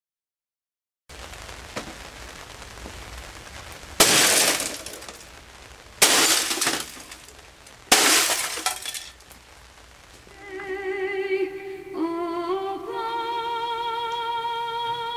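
A sledgehammer smashes into an HP all-in-one printer three times, about two seconds apart, each blow a crash with the glass of the scanner bed shattering. From about ten seconds in, a woman sings with a strong vibrato.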